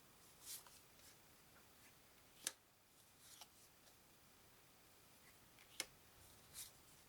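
Faint handling of game cards: two sharp clicks about three seconds apart, with a few soft short swishes of cards sliding or rustling between them.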